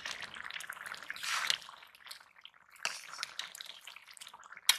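Metal ladle stirring a simmering fish and green papaya curry in an iron karahi: irregular wet sloshing and bubbling, loudest about a second and a half in, with one sharp knock near the end.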